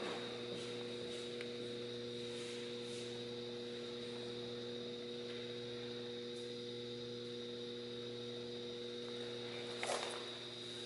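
Steady electrical mains hum, a low drone made of several steady tones, with a faint click near the end.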